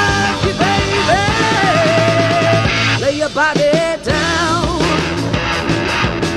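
British blues-rock band playing an instrumental passage: electric lead guitar bending notes and shaking them with vibrato over bass and drums.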